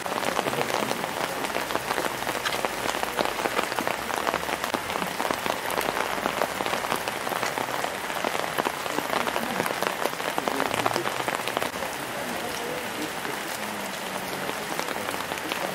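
Steady rain falling, a dense patter of drops, a little quieter after about twelve seconds.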